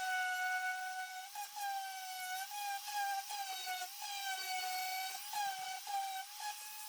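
Electric orbital sander running with a steady high whine, its pitch wavering slightly and dipping briefly a few times, as it sands the paper pattern and adhesive residue off a wood cutout.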